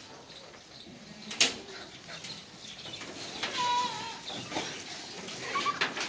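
Goats feeding at a wire fodder rack: scattered rustling and knocks, with one sharp knock about a second and a half in. A short, high, wavering goat bleat comes near the middle, and a brief high call near the end.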